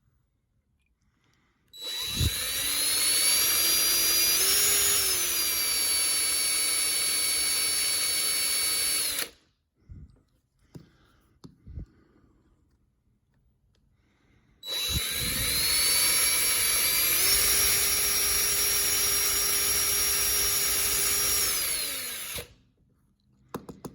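Small electric drill drilling out a rivet on a diecast toy car, in two runs of about seven and a half seconds each. Each run spins up to a steady whine, shifts pitch slightly a few seconds in, and winds down at the end. A few light clicks come between the runs.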